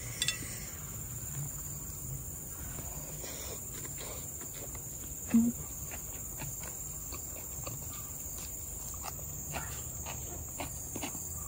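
Steady high trill of insects, with soft clicks and smacks of someone eating rice and quail egg by hand and chewing. A short low hum comes about five seconds in.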